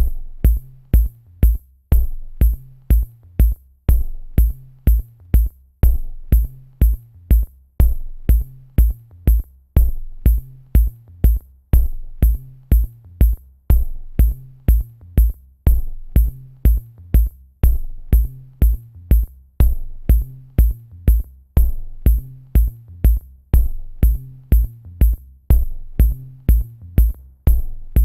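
Electronic background music with a steady drum-machine beat and a bass line.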